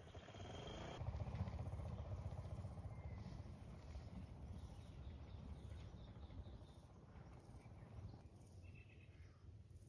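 Outdoor ambience: a steady low rumble that swells about a second in, with faint bird chirps over it.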